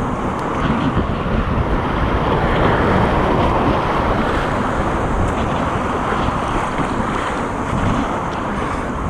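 Whitewater rushing steadily around a kayak running a rapid, with water splashing over the bow, loud and close, and wind buffeting the microphone.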